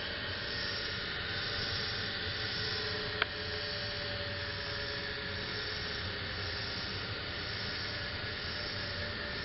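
Bench lathe's AC induction motor running steadily with a hissing whir and a faint hum. One sharp click about three seconds in.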